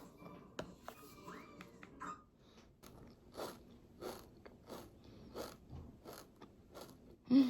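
Close-up chewing of food, a crunchy bite repeated at a steady pace of about two chews a second.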